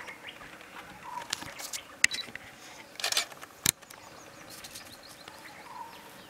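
Bush ambience: scattered bird calls, including a short note repeating every few seconds, broken by a few sharp clicks about two and three and a half seconds in and a brief rustling burst about three seconds in.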